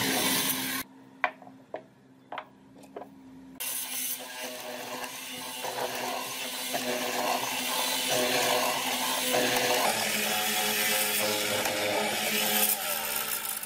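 Hollow-chisel mortiser running and boring a square mortise into a softwood block, its motor hum under the noise of the auger and chisel chewing through the wood. About a second in the cutting stops for roughly three seconds, with a few sharp clicks, then the motor and cutting start again and run on steadily.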